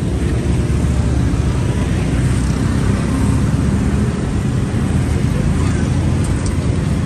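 Motor vehicle traffic, a steady low engine rumble.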